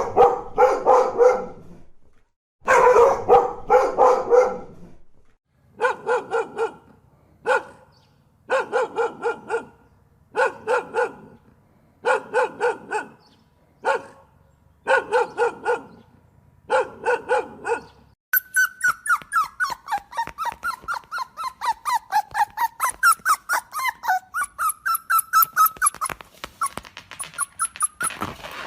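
Dog barking in short bursts of several barks each, with pauses between them. About two-thirds of the way in it changes suddenly to a dog making a long run of fast, high-pitched whimpering cries that waver up and down in pitch.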